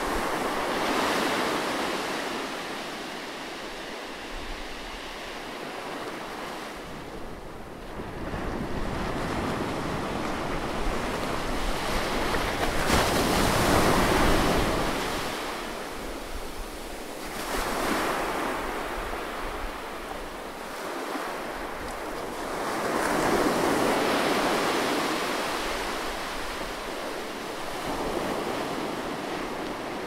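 Gentle surf breaking and washing up a sandy beach, rising and falling in slow swells as each wave comes in, the loudest about halfway through.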